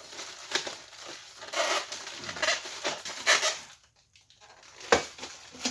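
Irregular rubbing and scraping of hands handling parts, with one sharp knock about five seconds in.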